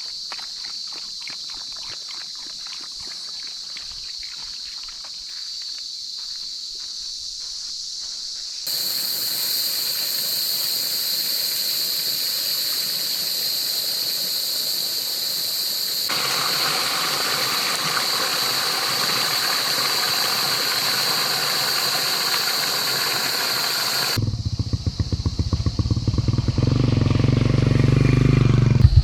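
A run of outdoor clips: first a steady high insect drone with light clicks, then a loud steady hiss that changes character twice, and near the end a motorcycle engine running, growing louder.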